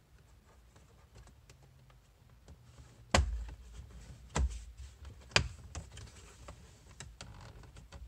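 Plastic dashboard trim panel on a 2015 Honda Fit being pulled off by hand, its retaining clips letting go in sharp clicks, the loudest about three, four and a half and five and a half seconds in, among lighter ticks of plastic being handled.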